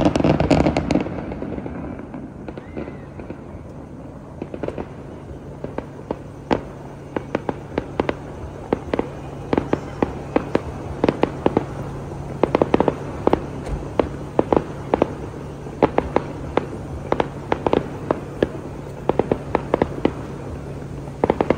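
New Year's fireworks going off: a loud boom in the first second, then a long run of sharp pops and crackles, several a second from about six seconds in, over a steady low hum.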